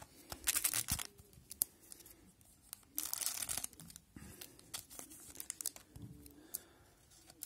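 Foil wrapper of a hockey card pack crinkling and tearing open, in two bursts, one about half a second in and a longer one about three seconds in, with light clicks and rustles of handled cards between.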